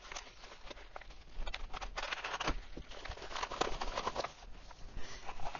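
Yellow padded paper mailer rustling and crinkling as it is handled and opened, with many irregular small clicks and taps.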